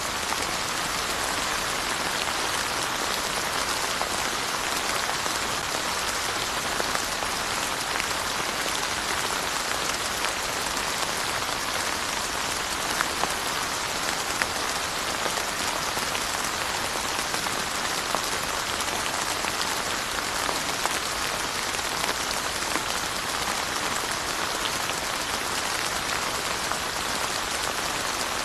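Steady rain falling and pattering on surfaces, a dense even hiss with scattered individual drop ticks.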